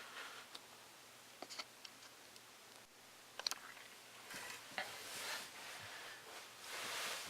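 Sticker sheets and paper being handled: a few light clicks and taps, then soft paper rustling and sliding from about four seconds in.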